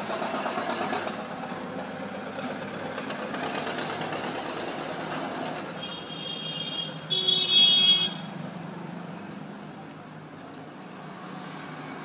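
Road traffic noise, with a vehicle horn sounding twice about six and seven seconds in, the second toot louder and about a second long.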